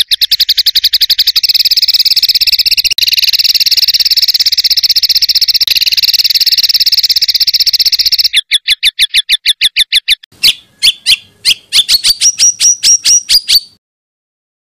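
Songbird giving a rapid-fire burst song of high repeated notes in a dense, fast trill. About eight seconds in it slows to separate sharp notes, then breaks into a run of notes rising in pitch, and it stops a second before the end.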